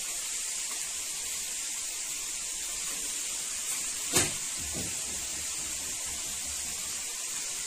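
Hot oil sizzling steadily as chana dal vadas deep-fry in a kadai. There is a brief sharp knock about four seconds in.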